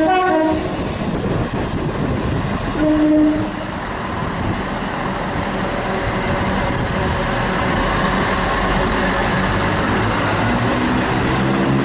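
Class 168 diesel multiple unit passing through the station without stopping, its running noise building steadily; a short horn blast sounds about three seconds in.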